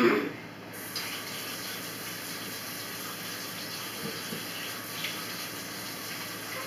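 Kitchen sink tap running steadily while hands are washed under it. Right at the start there is a short, loud knock.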